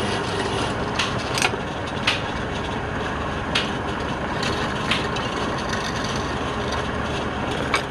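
Wood lathe running steadily, with irregular sharp clicks or taps every second or two.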